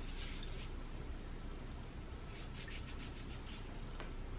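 Skin rubbing on skin as freshly sprayed perfume is worked in at the wrists: soft brushing strokes at the start, then a quick run of them about two to three and a half seconds in. A single sharp click near the end.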